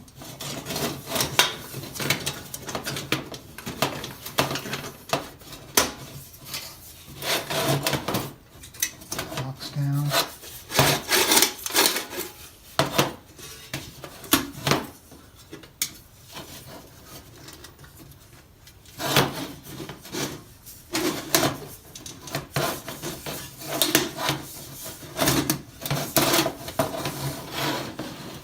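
Steel plates of an armet helmet clinking, clicking and knocking as its hinged pieces are worked. The knocks come in irregular clusters through the whole stretch.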